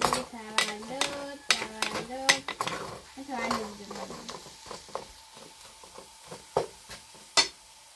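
A utensil clicks and scrapes against a pot as food is stirred, with sharp clicks scattered throughout and sparser in the second half. A high voice sounds in drawn-out tones without clear words during the first half.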